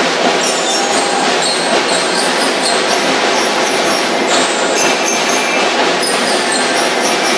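Marching drum and lyre corps playing: snare drums rattling in a dense, steady wash, with short high bell lyre notes ringing over them.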